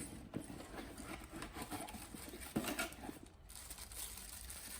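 Handling noise as power tools and packaging are moved about: scattered light knocks and clicks with soft rustling, the clearest knock about two and a half seconds in.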